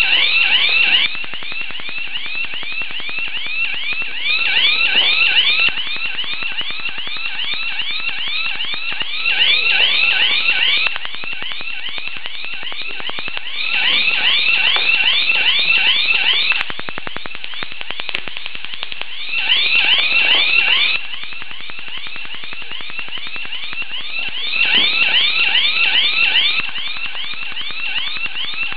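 Electronic alarm sounder of a shock-alarm security briefcase going off: a loud, rapid, repeating high-pitched warble that never stops, swelling louder for a second or two every few seconds.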